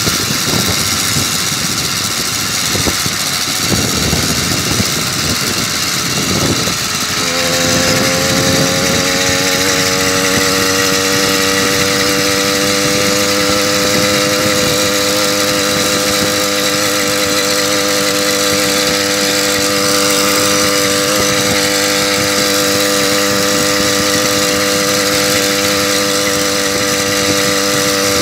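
Moped engine running at speed under rough wind noise on the microphone. About seven seconds in, its whine comes through clearly, rises a little in pitch, then holds steady at high revs.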